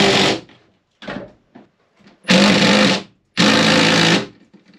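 Cordless drill run in three short bursts, each under a second, as it is worked into the wooden boat's framing.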